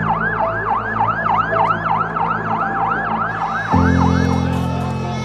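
Siren in fast yelp mode, its pitch sweeping up and down about four times a second, stopping about three and a half seconds in. Low sustained music notes run underneath and swell up loudly just after the siren stops.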